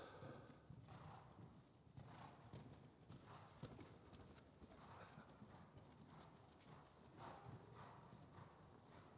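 Faint, rhythmic hoofbeats of horses cantering on the sand footing of an indoor riding arena.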